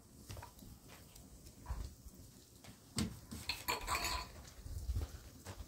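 Metal cup and bowl being handled, giving scattered clinks and knocks, with a busier clatter about three to four seconds in.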